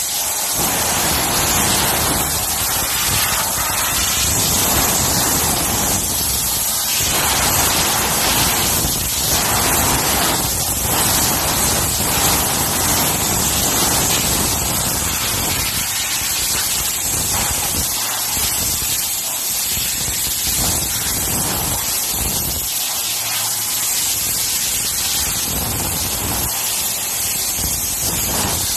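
Compressed-air blow gun hissing steadily as it blows dust off a display panel's surface, the blast growing and easing in strength several times.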